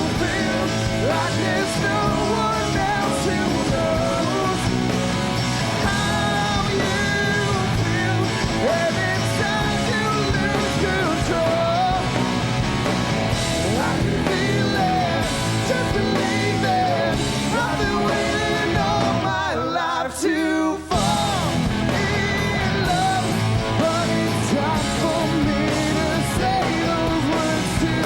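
Rock band playing a song with a lead vocal over electric guitar, bass and drums. About twenty seconds in, the bass and drums drop out for around a second, then the full band comes back in.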